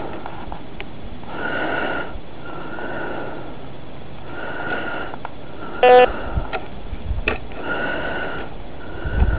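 Metal detector signalling in a series of short, noisy tones as the coil is swept back and forth over a dug hole, answering a deep iron target. About six seconds in comes a single sharper beep, and a few light clicks follow.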